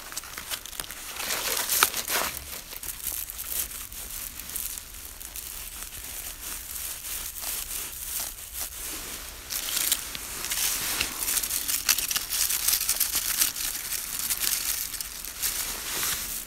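Dry oak leaves, fern fronds and spruce twigs rustling and crinkling as they are handled and tucked into a Christmas wreath by hand. The rustling comes in irregular spells and is busiest in the second half.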